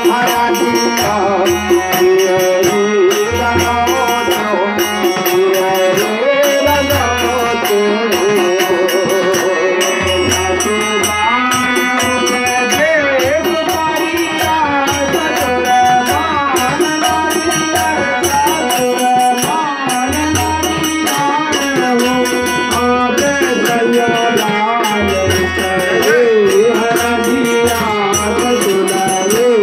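Bagheli sohar folk song: male voices singing a winding melody to harmonium chords and drone, with a high rattling percussion keeping a steady beat and a dholak drum coming in and out.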